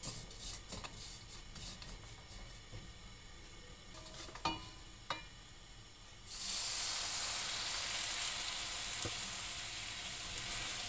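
Wooden spatula scraping and stirring lumps of jaggery in a hot nonstick wok, with two light knocks. About six seconds in, water poured into the hot pan sets off a sudden, loud, steady sizzle as the jaggery begins to melt into syrup.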